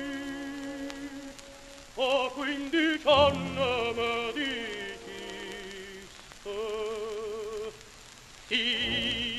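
Old 78 rpm shellac record playing a tenor singing a Neapolitan song with orchestra: held notes with wide vibrato, growing louder about two seconds in and again near the end, over the disc's crackling surface noise.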